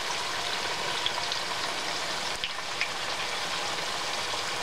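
Brown-sugar-coated sweet potato wedges sizzling steadily as they shallow-fry in hot oil in a stainless steel pan, with a few light clicks as a wooden spatula and fork turn them.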